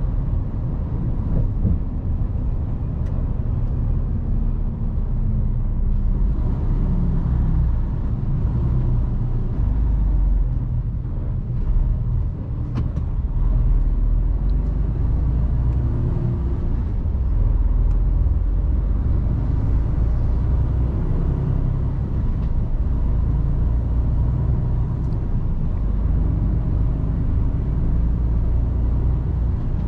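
Mercedes-Benz Actros truck's diesel engine running while the truck drives, a steady low rumble with road noise, heard from inside the cab. The engine note dips slightly a few seconds in.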